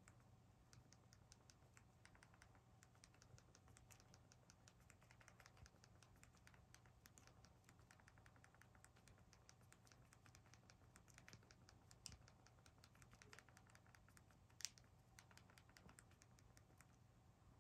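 Faint, rapid clicking of a Fire TV Stick remote's buttons being pressed again and again, several clicks a second, with one louder click near the end. A faint steady low hum lies underneath.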